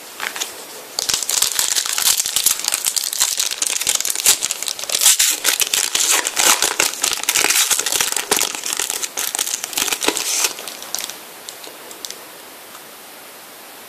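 Foil wrapper of a Panini Prizm trading-card pack crinkling as it is opened by hand, a dense crackle that stops about ten seconds in.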